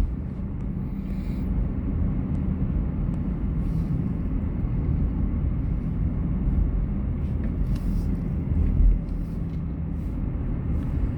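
Car driving, a steady low rumble of engine and road noise heard from inside the cabin, with a few faint clicks and a brief swell about nine seconds in.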